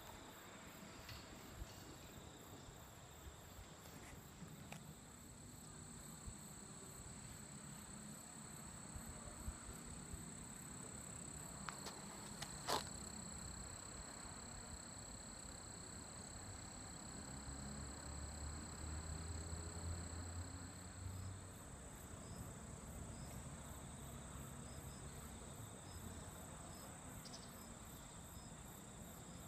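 Faint, steady high-pitched trilling of insects in the grass. A low rumble swells briefly a little past the middle, and there is a single sharp click about twelve seconds in.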